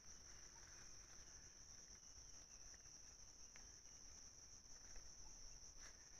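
Faint, steady high-pitched trill of insects, one unbroken continuous tone.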